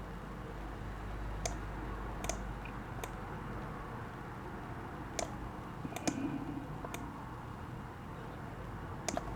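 Scattered light clicks and taps, about eight over the span, some in quick pairs, over faint room tone.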